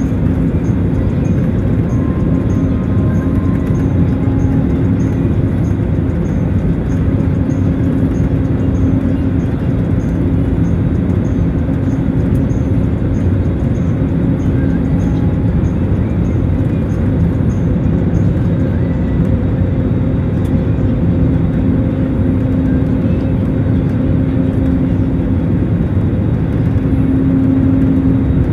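Airliner cabin noise on the approach to landing: the wing-mounted jet engine and the rushing airflow heard from a window seat, a steady, loud rumble with a constant low hum.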